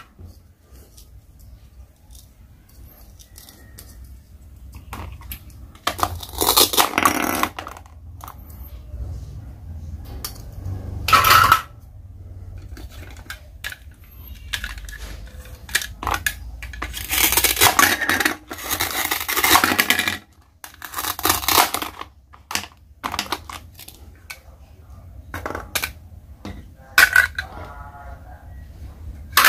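Plastic toy food pieces being handled and taken apart over a wooden table, clicking and clattering. Several longer rasping bursts come as pieces are pulled apart or rubbed together.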